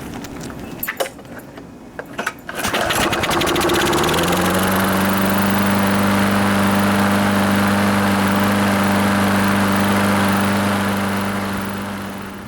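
Murray walk-behind lawnmower's small engine pull-started with its oil-saturated air filter removed: a few knocks, then it catches about two and a half seconds in, rises in pitch and settles into a steady run at speed. The level eases off a little near the end.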